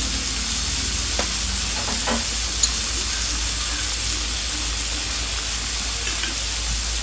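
Peanut and coconut-milk sauce sizzling and bubbling in a stainless pan with a steady hiss, with a couple of soft strokes of a bamboo spoon.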